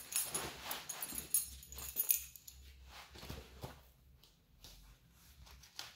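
Rustling of a tool belt's nylon webbing and clinking of its metal buckle and grommets as the belt is handled and fastened at the waist. The jingly clinks are busiest in the first two seconds, then give way to quieter rustles and clicks.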